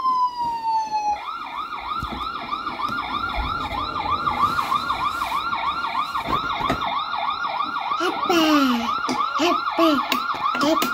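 Electronic police siren from a kids' 12V ride-on car's built-in speaker: a falling wail for about the first second, then a fast yelp repeating about three times a second.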